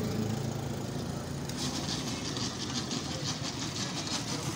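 A motor engine running steadily at idle, with a fast, even rattle joining in about a second and a half in.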